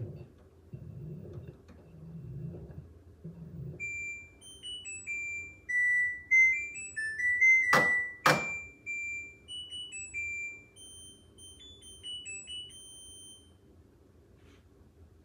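LG F13D9NC front-loading washing machine at the end of its cycle. The drum turns the laundry with a few soft tumbling thumps, then the machine plays its electronic end-of-cycle tune in high beeping notes, broken about halfway through by two loud clicks.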